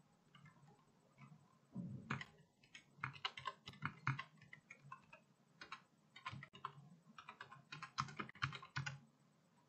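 Typing on a computer keyboard: runs of quick keystrokes starting about two seconds in and stopping near the end, with short pauses between words.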